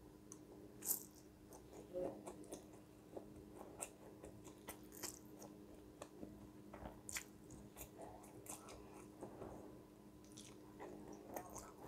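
A person eating chewy noodles with a fork: quiet chewing and slurping, with small wet mouth clicks scattered through. A faint steady hum runs underneath.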